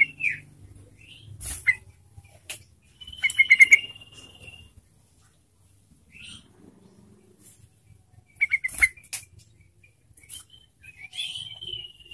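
Yellow-vented bulbul singing short bubbling phrases, about four of them spread apart, with sharp taps and flutters in between as the bird moves about its cage.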